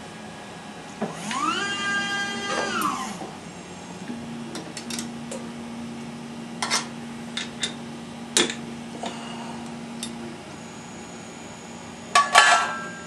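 Automated glass lathe's motor whining up in pitch, holding, and winding back down over about two seconds as the machine ends its bending cycle. A steady low hum follows, then a few sharp clicks, and clattering near the end as the bent quartz tube is handled at the chuck.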